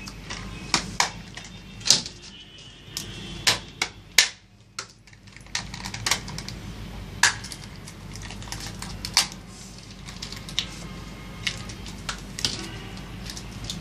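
Irregular sharp clicks and taps of small plastic Play-Doh cans, their lids and plastic toy tools being handled on a tabletop, with a brief quieter spell about four seconds in.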